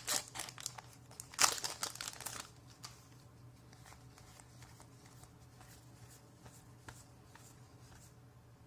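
Magic: The Gathering booster pack wrapper crinkling and tearing open for the first couple of seconds, loudest about a second and a half in, followed by faint soft ticks of cards being handled.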